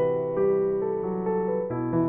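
Calm piano music: soft sustained notes and chords, a new note or chord about every half second.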